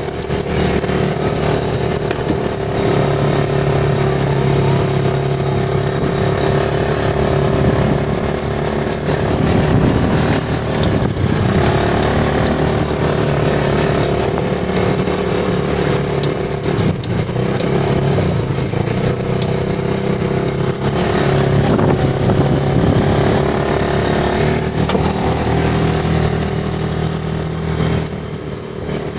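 Go-kart's small engine running steadily under way, its note rising and falling a little with speed.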